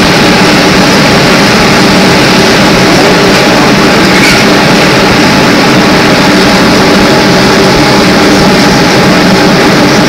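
Cabin noise inside a GM 'New Look' trolleybus with Brown Boveri electric propulsion: a steady hum of several constant tones over road and body noise, unchanging throughout.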